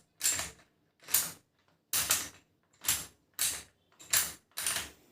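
Chuck key turned clockwise in a drill's keyed chuck, its gear teeth grinding against the chuck's ring gear in seven short ratcheting strokes as the chuck is tightened onto a new drill bit.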